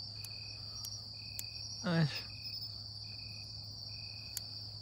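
Night insects: a steady high cricket trill, with a second insect chirping about once a second, over a low steady hum. About two seconds in, a brief sliding vocal sound stands out above them.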